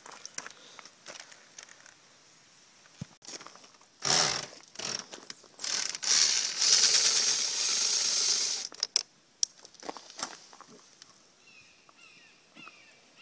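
Power drill-driver working on the boat's top-cap fasteners: short bursts, then one longer run of about two and a half seconds midway with a rapid rasping texture. Near the end a bird calls with a repeated falling chirp about twice a second.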